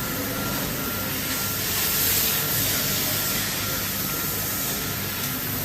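5-axis fiber laser cutting machine running, with a steady gas hiss over a low machine hum and a faint steady tone, swelling slightly about two seconds in.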